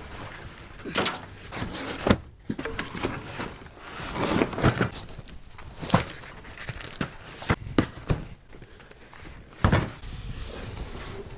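Cardboard boxes and bags being handled and set down in a utility vehicle's plastic cargo bed: irregular thumps and knocks with scraping and rustling between them, the loudest bump about ten seconds in.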